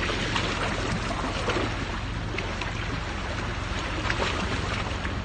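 Steady wind and water noise by the sea, with a few faint brief splashes or knocks and a low rumble underneath.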